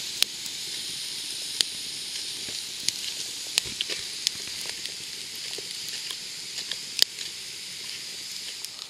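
Sliced carrots and onions sizzling in a pan over campfire embers: a steady hiss with scattered sharp crackles and pops, the loudest about seven seconds in.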